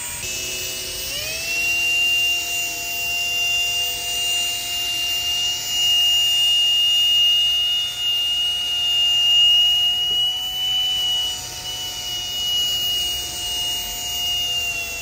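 Cordless brushless drill (Milwaukee FUEL) spinning a sanding pad against a wet plastic headlight lens, its motor whine rising as it speeds up about a second in and then running steadily at a slow speed setting. This is the coarse wet-sanding stage that removes the oxidised, yellowed outer layer of the lens.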